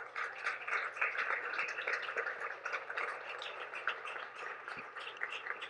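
Small audience applauding in a small room, strongest in the first seconds and dying down toward the end.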